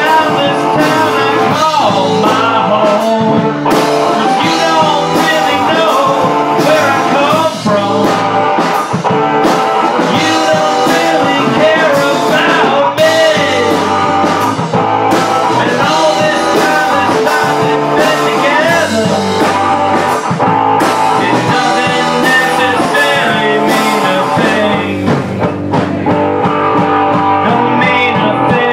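Rock band playing live, with electric guitar, drums and sung vocals, at a steady full volume.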